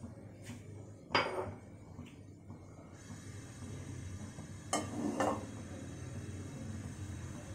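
Kitchen dishes and utensils clinking and knocking, a few separate strikes. The loudest comes about a second in with a short ring, and two more come close together about five seconds in, over a low steady hum.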